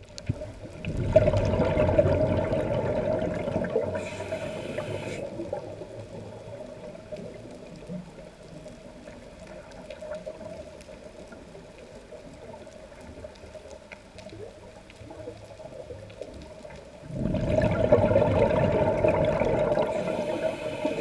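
Scuba diver breathing underwater through a regulator: two long bursts of exhaled bubbles, about a second in and again near the end, each closing with a short high hiss. Quieter water noise lies between them.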